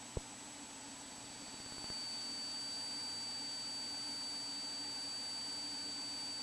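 Faint steady hiss of a light aircraft's intercom audio feed between transmissions, with a low hum and a thin high whine. There is a single click just after the start, and the level steps up slightly about two seconds in.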